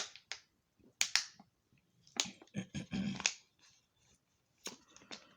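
Close-up eating sounds from chewing chicken and fries: sharp wet lip smacks and mouth clicks, a few at a time, with a longer muffled stretch of chewing in the middle.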